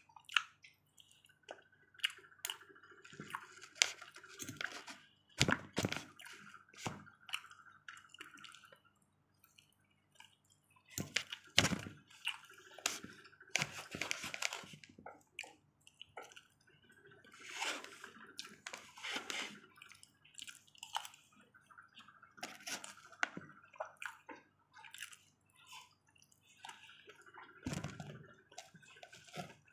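Close-up wet chewing and mouth sounds of someone eating chicken and rice, in bouts every few seconds, with sharp clicks of a metal fork and spoon against a foam takeout box.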